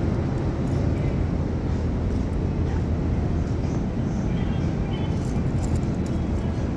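Steady low rumbling background noise inside a shop, with no distinct event standing out.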